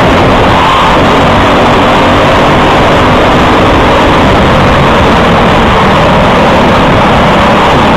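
Briggs & Stratton LO206 single-cylinder four-stroke kart engine running at racing speed, heard onboard, loud and steady, mixed with a dense rushing noise.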